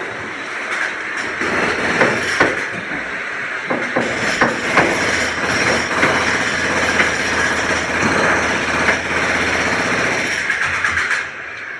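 Construction-site noise: machinery running steadily with many irregular metallic knocks and bangs through it. It drops off sharply in level near the end.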